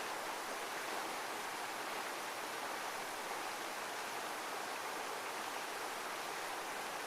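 Heavy waterfall: a steady, even rush of falling water with no rise and fall of surf.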